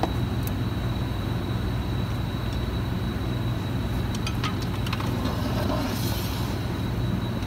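A steady low rumbling hum, with a few light clicks about four to five seconds in.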